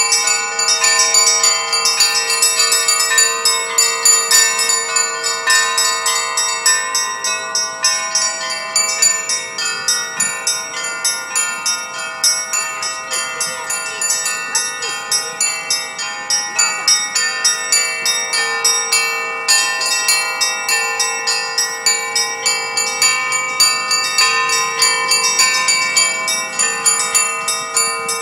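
Russian Orthodox church bells rung together as a continuous peal: several bells of different pitches, the small high bells struck several times a second over the sustained ring of the larger ones.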